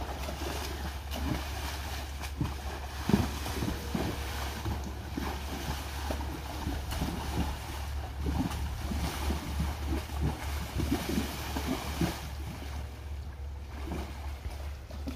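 A draft horse wading through a shallow creek, its hooves splashing the water in an irregular stream of strokes, the biggest splash about three seconds in. Wind rumbles on the microphone underneath.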